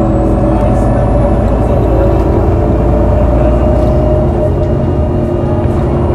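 Irisbus Citelis 18M articulated bus with a Voith automatic gearbox running: a steady engine and drivetrain drone, with a faint high whine that rises during the first few seconds and falls back.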